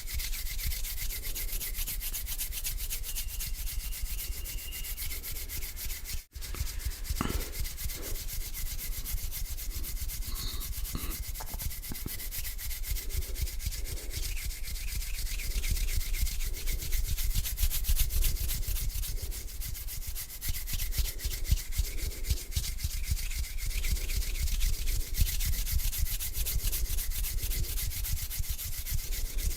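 Close-miked hands rubbing together slowly, skin sliding against skin in a continuous dry, hissy rubbing, broken by a very brief gap about six seconds in.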